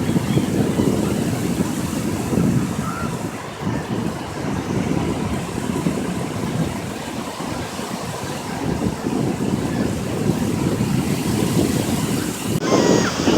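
Wind rumbling and buffeting on the microphone over the wash of surf. Near the end the sound changes abruptly and a bird starts calling.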